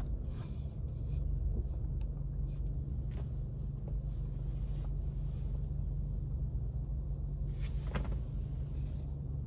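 Car driving: steady low engine and road rumble, with a few brief swells of hiss over it.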